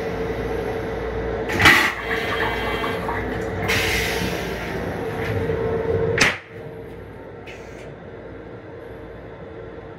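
M7 railcar toilet flushing: a loud whoosh about one and a half seconds in, a rush of rinse water, then a second whoosh a couple of seconds later. A clunk about six seconds in ends the cycle, a steady hum cuts off and it goes quieter, leaving the low rumble of the train.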